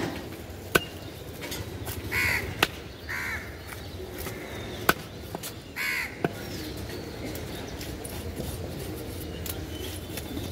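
A heavy knife chops through rui fish onto a wooden log block, giving several sharp knocks in the first six seconds. A crow caws three times between the chops.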